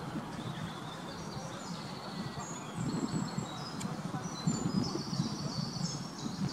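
Rose-ringed parakeet pair during courtship feeding: low, irregular chattering from the female begging as the male feeds her beak to beak, with high thin chirps above it and one sharp click about four seconds in.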